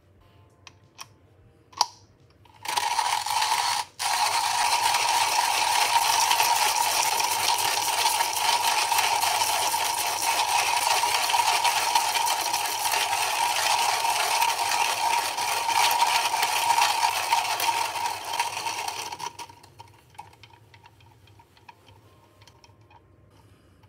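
Comandante C40 hand coffee grinder grinding beans: a steady crunching, ratcheting burr noise that starts a few seconds in after a few light clicks, pauses briefly, then runs for about fifteen seconds and stops.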